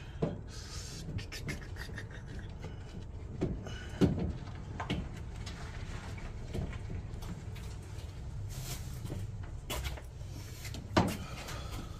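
Scattered knocks and clanks of metal parts and hand tools as a replacement alternator is worked into place in a car's engine bay, the sharpest about four seconds in and near the end, over a steady low hum.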